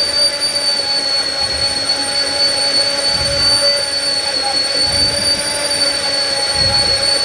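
Immersion blender running steadily with a high whine that wavers slightly in pitch, puréeing cooked onions into a smooth cream in a tall plastic jug.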